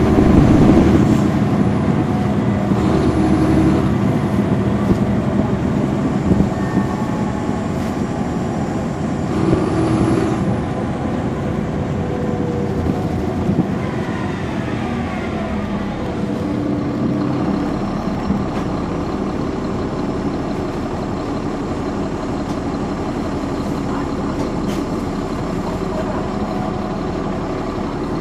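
Caterpillar C13 ACERT diesel engine of a 2009 NABI 416.15 transit bus running under way, loudest in the first second and rising and falling in pitch through the first half, then running steadier and a little quieter from about two-thirds in.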